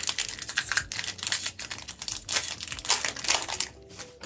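Foil wrapper of a trading-card booster pack crinkling as it is handled and torn open: a dense run of crackles that stops about three and a half seconds in.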